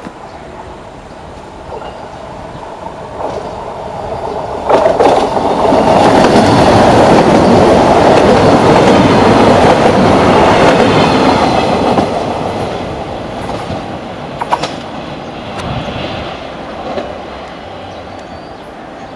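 Two coupled Siemens Desiro diesel multiple units passing close by: the engine and wheel noise builds, stays loud for several seconds as the train goes by, then fades as it pulls away. Wheels clack over rail joints and points, with sharp clicks about five seconds in and again near fifteen seconds.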